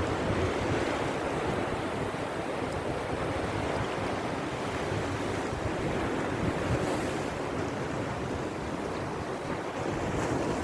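Sea surf washing steadily on the shore, with wind buffeting the microphone in a low, uneven rumble.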